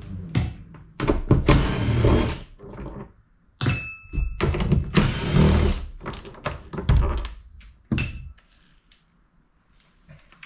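Cordless drill-driver with a T30 Torx bit backing screws out of a plastic cover, running in several short bursts of a second or so with clunks between them as it moves from screw to screw.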